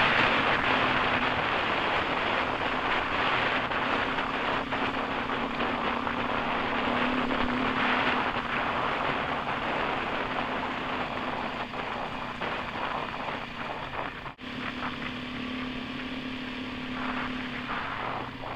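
On-board sound of an off-road motorcycle riding a dirt track: the engine runs at a fairly steady speed under a loud, even rush of wind and tyre noise. The sound drops out for an instant about fourteen seconds in.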